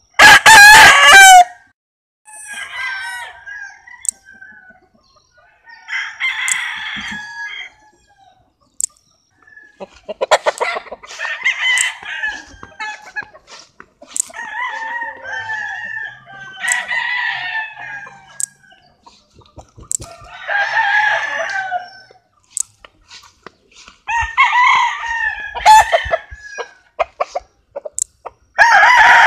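Several roosters crowing one after another, with chickens clucking between the crows.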